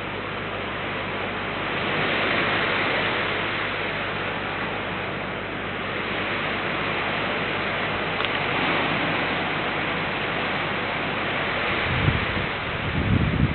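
Steady hiss of rain falling, swelling and easing slightly. Two short low bumps come near the end.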